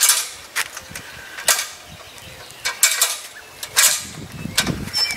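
Aluminium articulated ladder being folded by hand: a series of separate sharp clicks and metallic clanks from its hinged joints and locking latches.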